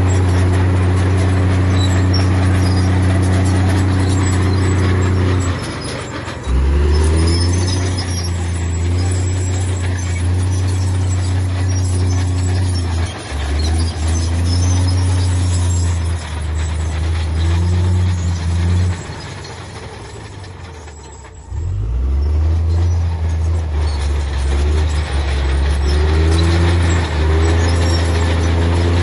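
Heavy diesel engine of earthmoving machinery running hard. It eases off briefly about six seconds in, and again for a couple of seconds around twenty seconds in, before picking back up.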